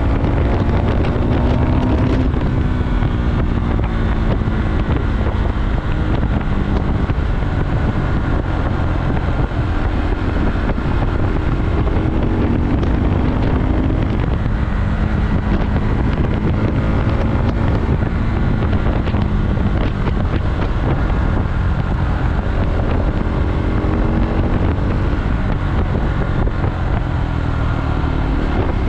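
KTM Duke motorcycle engine running under way, its pitch rising and falling repeatedly as the throttle opens and closes, over heavy wind noise on the microphone.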